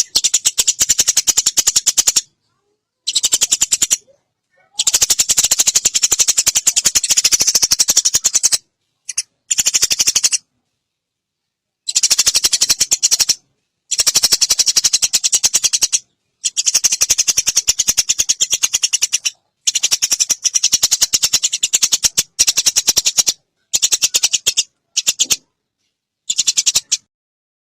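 A recorded animal call used for training songbirds: a fast, dry, high rattling trill, repeated in bursts of one to four seconds with short silent gaps between them.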